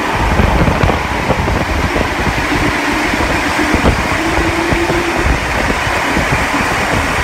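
Heritage passenger carriages of a steam-hauled train rolling past at close range: a steady rumble of wheels on rails.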